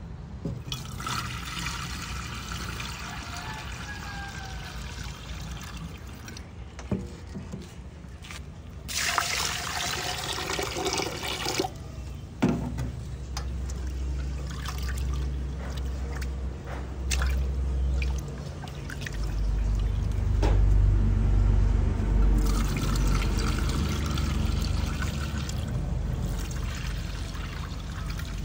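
Rice being rinsed in an aluminium pot at a steel sink: cloudy rinse water poured off into the drain in several stretches, and hands swishing and rubbing the grains in water. A few sharp knocks of the pot against the sink.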